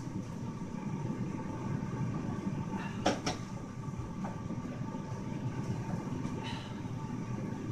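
Microwave oven running with a steady hum. Two sharp clicks come about three seconds in.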